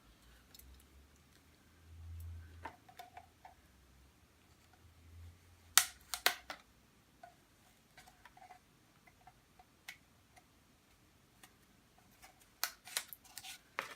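Scattered light clicks and handling noise of scissors and paper as the tape on a rolled-up art print is cut, with one sharper click about six seconds in and several quick clicks near the end.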